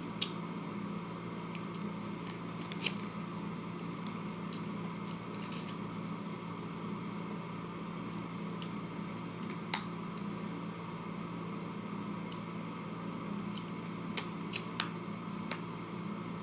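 Eating sounds: scattered small clicks and wet squishes from chewing and handling food, over a steady electrical hum.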